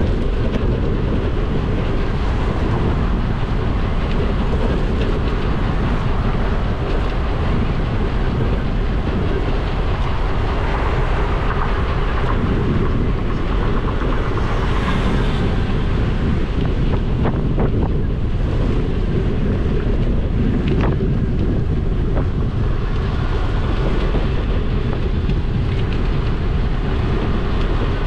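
Steady wind rumble buffeting a bike-mounted action camera's microphone while cycling, with a few short clicks or rattles about two-thirds of the way through.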